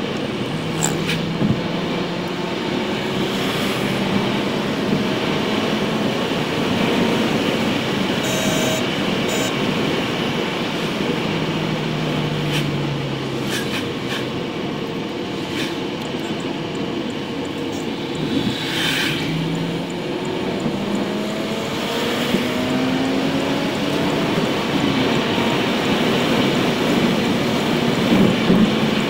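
Car cabin noise while driving on a highway: steady tyre and engine noise, the engine hum slowly gliding up and down in pitch, with a few short clicks and a brief swish about two-thirds of the way through.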